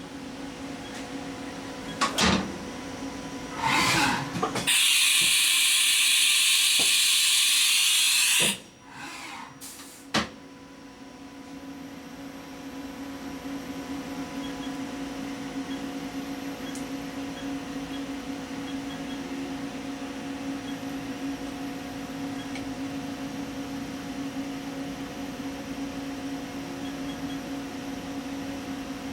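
Haas HS-1 horizontal machining center working: a couple of sharp clunks and a short burst, then a hiss of compressed air for about four seconds that cuts off suddenly, another sharp clunk, and then the machine's steady hum with a constant low tone.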